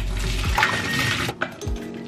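Background music with a beat; over it, a rush of water for about a second and a half that then stops, likely the cooked rigatoni being drained.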